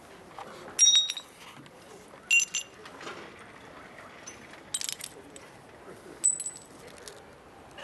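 Glass bottles shattering on concrete: four separate crashes, each with a brief high ringing of glass, the first the loudest.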